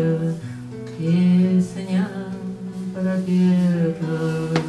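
A woman singing long held notes of a Russian romance, with her own acoustic guitar accompanying. There is a sharp click near the end.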